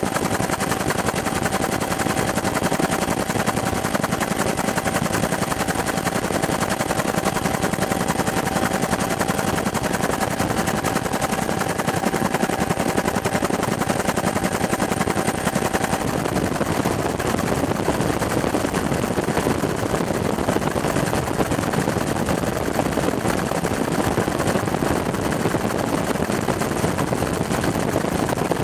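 Helicopter in flight, heard from inside the cabin: a loud, steady, rapid chop of the rotor blades over engine and wind noise. A faint steady whine cuts off about halfway through.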